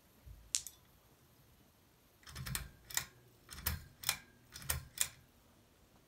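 Pull-chain switch on a Hunter Westminster ceiling fan being pulled several times, each pull a sharp click with the chain rattling. One click comes about half a second in, then three pairs of clicks follow close together over the next few seconds.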